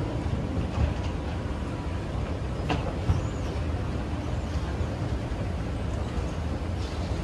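Escalator running: a steady low rumble from the moving steps and drive, with one sharp click a little under three seconds in.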